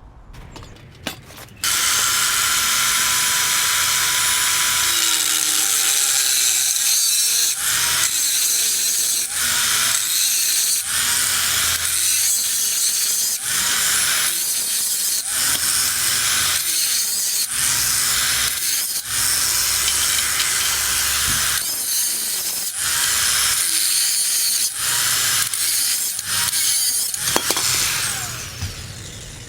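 Power tool cutting through the steel exhaust pipe of a 1978 Suzuki GS550: a loud, steady hiss with a motor whine that sags under load, easing off briefly every second or two as the cut goes on.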